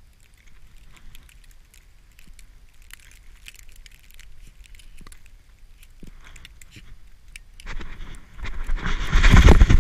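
Handling noise on a GoPro strapped to a husky puppy's back: scattered clicks and rustling as fur, harness and snow rub against the camera case while the dog moves. About eight seconds in it turns into a loud rushing, rubbing noise that cuts off suddenly.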